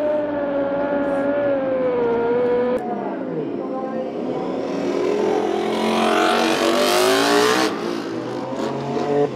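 Honda-powered Dallara IndyCar's 2.2-litre twin-turbo V6 held at high revs while the car spins donuts, the pitch sagging slightly. After a cut a racing engine drops in revs, then revs up hard with rising pitch for about three seconds and stops sharply near the end.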